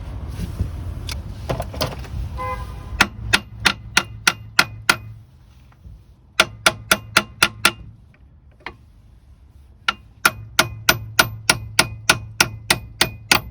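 Hammer blows on steel in quick runs of about three or four ringing metallic strikes a second. There are three bursts with short pauses between them.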